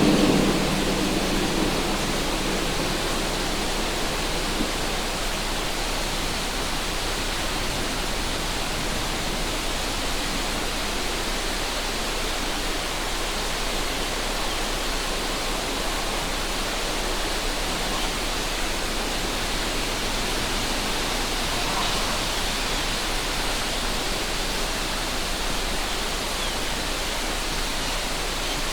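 River water rushing steadily, an even hiss of flowing water. A low wind rumble on the microphone dies away in the first second.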